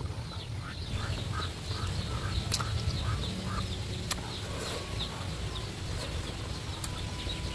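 A run of short, repeated bird calls, about three a second, over the first few seconds, with a few sharp clicks of chewing as Indian mango slices are eaten. A steady low rumble runs underneath.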